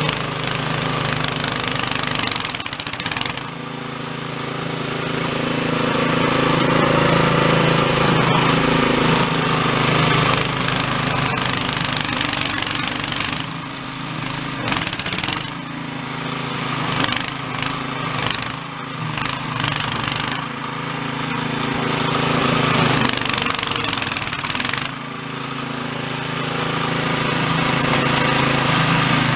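Toro Snowmaster 724 QXE snowblower running under load as its auger churns through deep, heavy, refrozen snow and throws it out of the chute. The engine drones steadily under a rushing noise of snow, and the loudness rises and falls as the machine bites into the snow.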